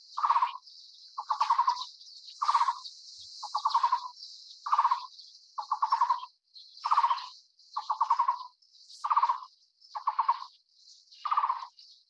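Taiwan barbet calling: a low, rapidly pulsed note repeated about once a second, over a steady high hiss.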